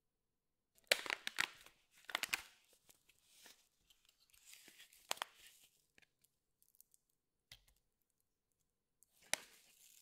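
Plastic bag of a baking ingredient being handled, crinkling and tearing in a run of short, irregular bursts that are loudest about a second in and again near the end.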